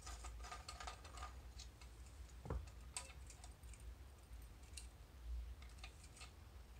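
Faint scattered ticks and light clicks of brass parts as the fuel vessel of a brass miner's safety lamp is unscrewed by hand, with a soft knock about two and a half seconds in.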